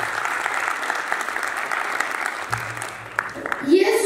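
Audience applauding, a dense patter of claps that dies away about three seconds in. Near the end a child's voice starts a held, sung note.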